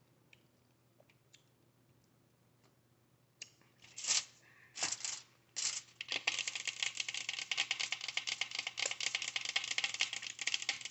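Faint ticks at first, then a few loud crackles about halfway in, followed by dense, continuous crackling with many clicks a second through the rest.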